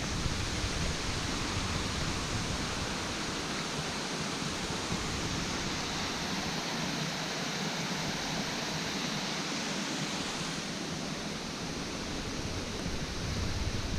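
Gill Beck pouring over a small weir: the steady, even rush of falling water.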